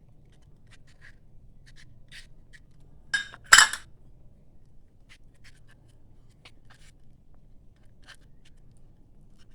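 Light scrapes and clicks of small cake molds being greased with butter and dusted with flour. One louder clatter comes about three and a half seconds in.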